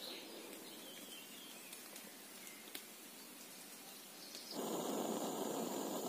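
Faint forest ambience, then about four and a half seconds in a steady rushing sound starts abruptly: a canister gas camping stove burning under a pot.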